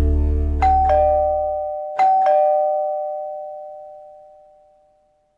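Two-note doorbell chime sounding ding-dong twice, a higher note followed by a lower one each time, the second pair ringing on and fading away. The end of a music chord fades out under the first ding-dong.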